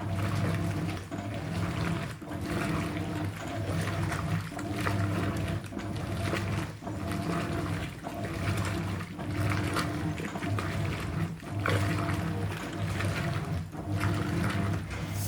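Hoover 800RL top-loading washing machine agitating a load: quick agitator strokes, about one a second with barely a pause between them, over the motor's hum and churning water. This is the last stretch of washing after the soak, before the drain.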